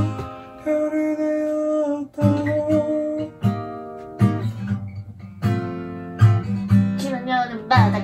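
Acoustic guitar strumming chords, about one strum a second over low bass notes, with a voice starting to sing near the end.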